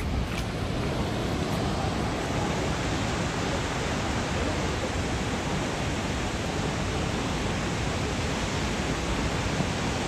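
A tall waterfall running high in the rainy season, making a steady rushing noise.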